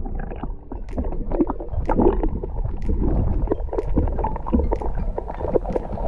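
Swimming movement and sea water heard through a camera held underwater: a muffled, low churning rush with scattered sharp clicks.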